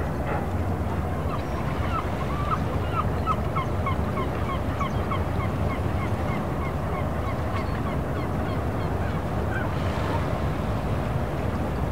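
A bird calling in a quick series of short, clipped notes, about two a second, trailing off after several seconds, over the steady low rumble of the harbour.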